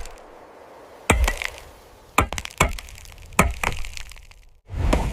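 Axe blows and wood cracking in a tree trunk: about six sharp, woody cracks and chops spread over a few seconds as the tree is cut through.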